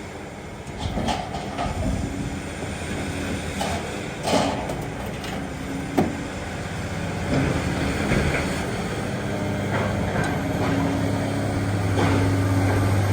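A scrapyard magnet crane's engine running, with scattered knocks and clanks of scrap metal as the load is lifted. The engine hum grows stronger near the end.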